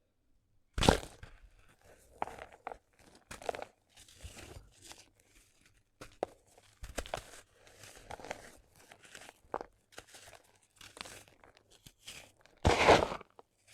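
Gritty sand cement crumbling and crunching in irregular crackly bursts, with two louder crunches: one about a second in and another near the end.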